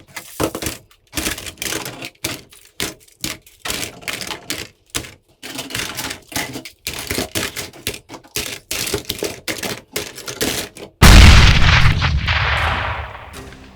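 Toy gun shots: a long run of short, sharp shots and clicks in uneven quick bursts. About eleven seconds in comes one very loud boom that fades away over a couple of seconds.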